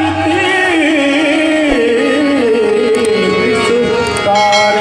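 Qawwali music: harmoniums sustaining notes under a male voice singing a long, wavering melismatic line, with a new held note coming in near the end.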